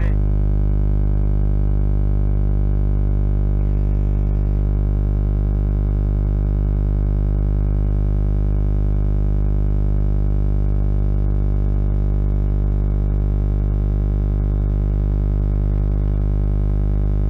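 A loud, unchanging electrical buzz with a stack of even overtones, like mains hum in an audio feed, with no change in pitch or level.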